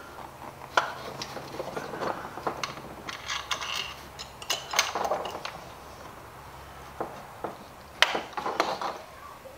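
Scattered clicks, knocks and clinks of hand tools and metal fittings being worked at a car's intake and throttle body. There is a sharp click about a second in, a short jingling rattle a few seconds in, and another sharp click near the end.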